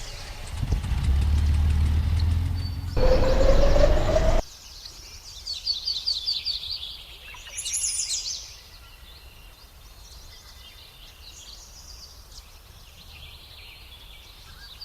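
A motor runs loudly for a few seconds; near the end its pitch rises, then it stops abruptly. After that, birds chirp in short repeated trills over quiet background noise.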